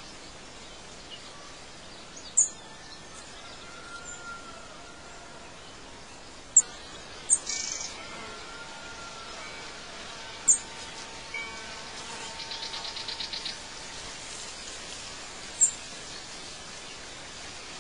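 Outdoor birdsong ambience: short, sharp high bird chirps every few seconds over a steady hiss, with a quick trill of rapidly repeated notes about two-thirds of the way through.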